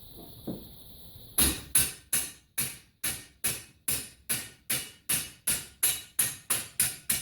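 A steady run of sharp knocks on metal, close to three a second, starting about a second and a half in. These are hammer or tapping blows while the homemade scrap-metal spring compressor is fitted onto a bench vise.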